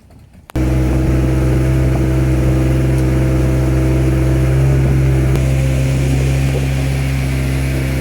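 Motorboat engine running steadily at a constant pitch, heard from on board, with water and wind hiss. It comes in suddenly about half a second in.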